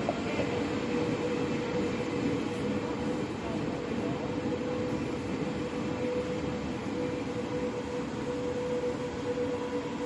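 Railway train noise: a steady rumble with a steady mid-pitched hum held throughout.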